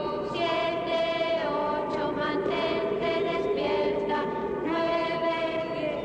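Choir-like voices chanting in long held notes, the pitch moving to a new note about every second.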